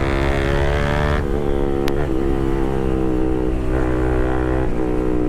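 Pulsar RS200 single-cylinder engine through a full titanium Akrapovic exhaust system, running at steady high revs under way, with wind rush. Its pitch drops slightly about a second in and dips briefly near the end.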